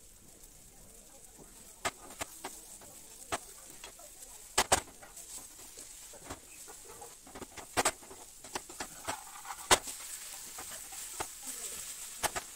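Metal slotted skimmer knocking and scraping against a nonstick frying pan as egg and dal are stir-fried, an irregular series of sharp clicks over a faint steady frying hiss.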